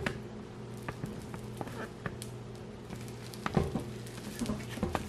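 ZURU Oosh Fun Foam, a bead-filled foam putty, squeezed and worked by hand, giving irregular crunchy crackles and small pops, a few louder ones in the second half. A steady low hum runs underneath.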